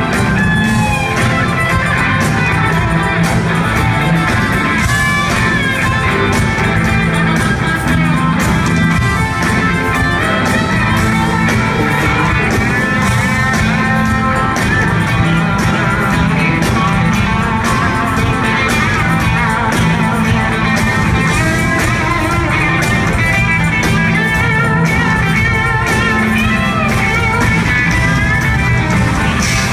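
A live Southern rock band playing, with electric guitar lines over drums and bass, heard from the audience in a concert hall.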